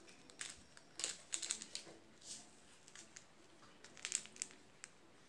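Table knife scraping margarine onto a split bread roll: scattered light scrapes and clicks, in two small clusters.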